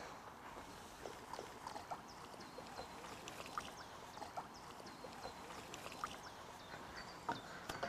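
Landing net dipped into pond water and lifted out, with faint scattered splashes and water trickling and dripping off the mesh, a little louder near the end.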